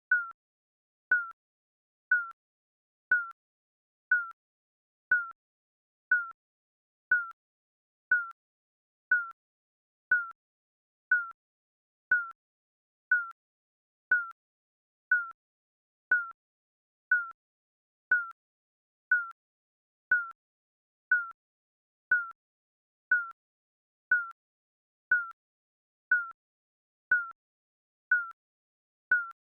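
Digital countdown timer beeping once a second: a short, high electronic beep with a slight drop in pitch, repeated evenly.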